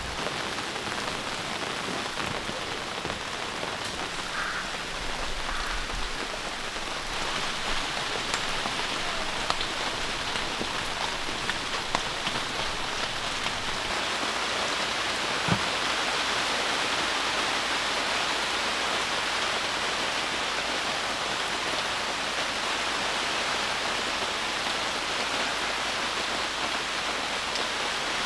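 Heavy rain falling steadily, with scattered louder drop hits, growing a little louder about seven seconds in.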